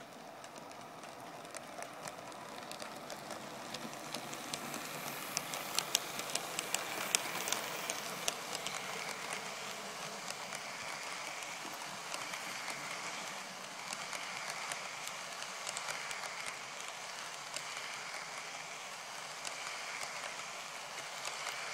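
Model train of cement tank wagons rolling along the track, a steady rolling rattle that grows louder as it approaches. The wheels click sharply over the rail joints, thickest about five to eight seconds in.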